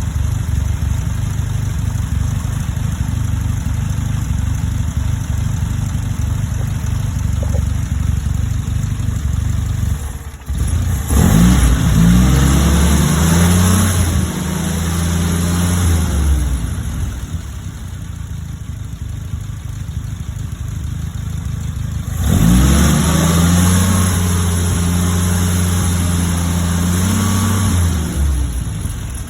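Engine idling roughly with an uneven low rumble, twice brought up quickly to a higher, steady speed that is held for about five seconds before dropping back to the rough idle. The rough idle is put down to a vacuum problem, typically a vacuum leak.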